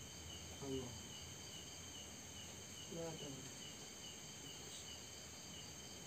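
Crickets chirping in a steady, even rhythm of about three chirps a second, with a continuous higher insect trill above. Twice, about a second in and again three seconds in, a short low sound slides down in pitch.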